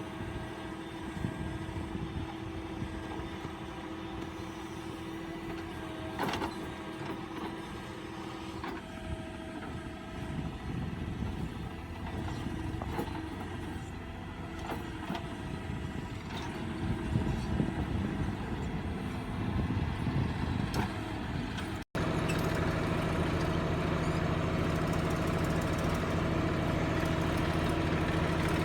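Diesel tractor engine running under a backhoe loader at work, with occasional short knocks. After an abrupt break about 22 seconds in, the engine is louder and steady.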